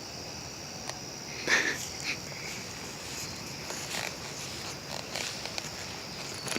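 Footsteps on grass and leaves, with one sharp, louder short sound about one and a half seconds in, over a steady high hiss.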